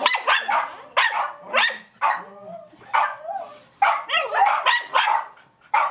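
Dog barking in quick, uneven runs, about three sharp barks a second.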